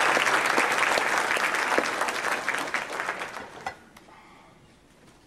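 Audience applauding, the clapping thinning and dying away about three and a half seconds in.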